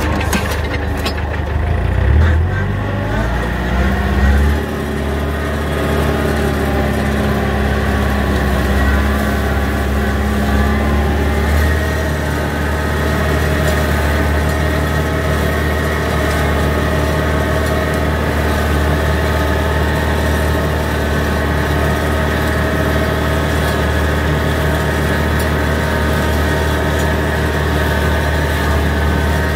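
Antonio Carraro TC5800f tractor's engine running under load with its offset flail mower cutting grass, a loud, steady mechanical drone. The engine revs rise about two to four seconds in, then hold steady.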